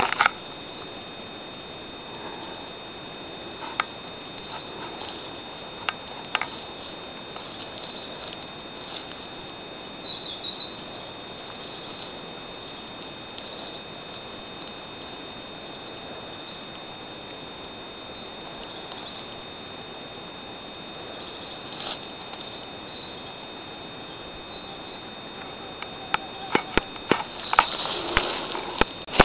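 Woodland birds calling in short high chirps, with one longer dipping call about ten seconds in, over a steady high tone. Near the end come footsteps and rustling on the leaf-strewn forest floor.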